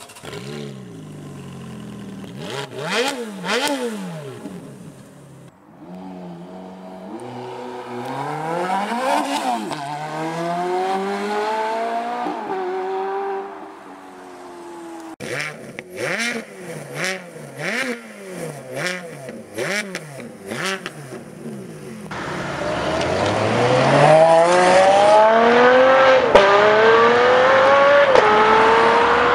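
Ferrari V8 engines in a run of short edited clips: an F430 revved at standstill, then hard accelerations with the pitch climbing and dropping back at each upshift, a series of quick throttle blips, and a final loud acceleration through the gears.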